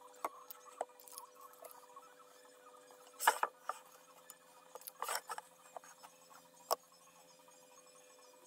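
Workshop handling noises as a pine board, tape measure and metal ruler are set down and moved on a cutting mat: a scattering of sharp clicks and knocks, the loudest about three seconds in, over a faint steady hum.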